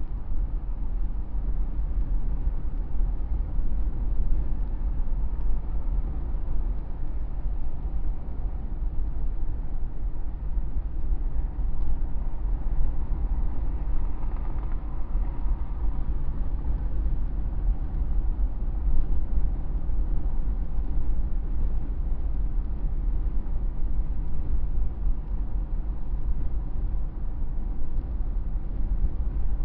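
Steady road and engine noise of a vehicle cruising at freeway speed, heard from the dashcam, dominated by a heavy low rumble.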